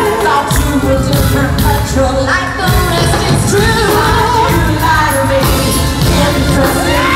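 Live pop-rock band playing with a woman singing lead over drums and bass, heard as a loud concert-hall recording.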